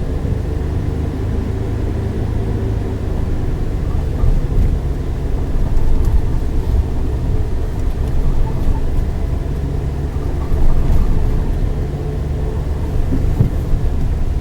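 Suzuki Jimny JB64's 660 cc turbocharged three-cylinder engine running steadily under way, with road rumble and a few light knocks from the rough track.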